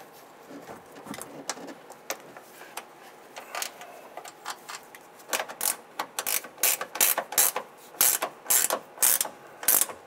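A 7/16-inch ratcheting wrench clicking as a bolt is run down. A few faint clicks come first, then from about halfway through a quick run of louder ratchet strokes, about three a second.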